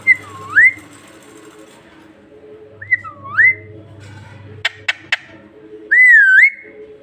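Parrot whistling three times, each a swooping note that dips and then rises, with three sharp clicks between the second and third whistles.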